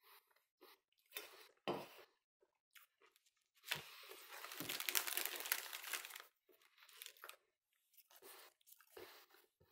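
Crinkly plastic cracker wrapper rustled and crumpled by hand, loudest for about two and a half seconds in the middle, with a few shorter rustles before and after.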